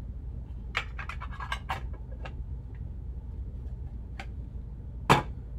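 Clear plastic card cases clicking and tapping as they are handled, with a quick cluster of clicks about a second in, a couple of single clicks after, and one louder knock near the end. A steady low hum runs underneath.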